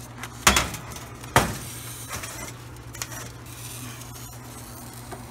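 Metal baking pan and the oven's wire rack clanking as the pan is set in the oven: two loud clanks about a second apart, then a few lighter clinks.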